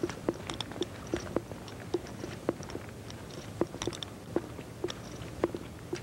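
Sharp clicks and knocks, roughly two a second and not quite even, some with a short hollow ring, over a low steady hum.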